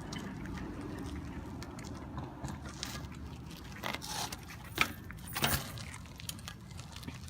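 A dirt jump bike being hopped on its back wheel: several sharp knocks and rattles as the rear tyre lands and the chain and parts shake, the loudest about five seconds in, over a steady low rumble.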